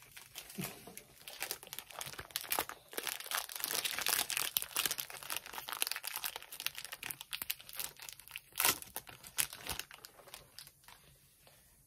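Foil wrapper of a Pokémon booster pack crinkling and tearing as it is ripped open by hand, a dense crackle with one sharper crackle late on, dying away near the end.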